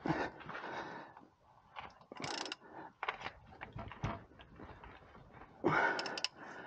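Hands working a new vacuum pump belt onto the engine pulleys of a GMC Sierra V8: three short bursts of scraping and rubbing with a few clicks, about two to three seconds apart.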